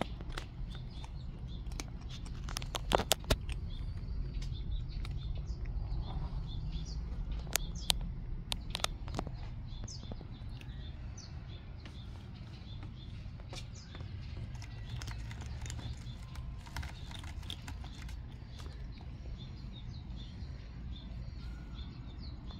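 Outdoor garden ambience: a steady low rumble on the microphone with faint high chirping repeating throughout, and a few sharp clicks and taps, the loudest about three seconds in and again near eight seconds.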